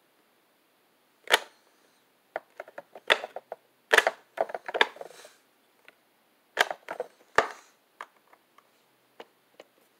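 Plastic toy tow truck being handled by hand: irregular clicks, knocks and light rattles of its hard plastic parts, starting about a second in.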